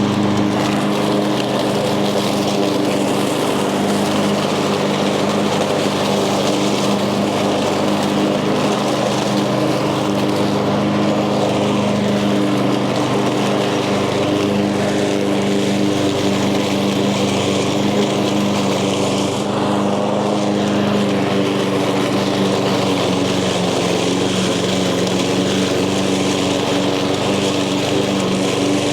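Echo gas lawn mower engine running steadily under load while cutting tall, thick grass and weeds.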